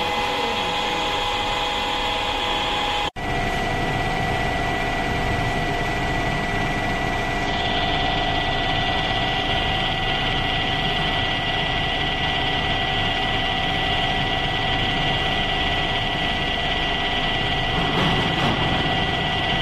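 CW6163B conventional lathe running steadily while turning a steel bar, a machine hum with several steady whining tones from its gearing. The sound briefly cuts out about three seconds in and comes back with the whine at a slightly different pitch.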